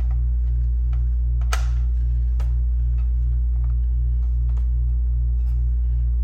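A steady low electrical hum runs throughout. Over it come a few sharp metallic clicks and taps from a screwdriver and screws, as screws are tightened on the Macintosh Classic's CRT; the loudest click comes about a second and a half in.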